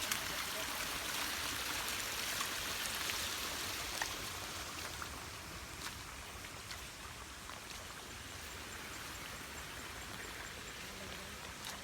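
Stream water running steadily over rocks, softer after about four seconds, with a few faint clicks.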